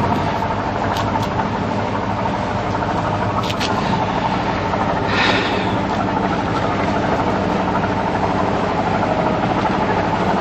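Boat engine running steadily with a low, even drone, with a brief hiss about five seconds in.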